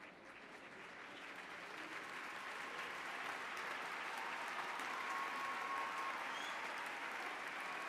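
A large crowd applauding. The clapping builds over the first few seconds and then holds steady.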